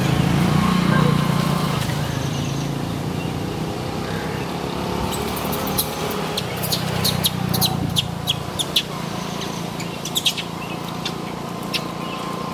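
Birds chirping in a run of short, high calls from about five to nine seconds in, over a steady low rumble that is loudest in the first two seconds.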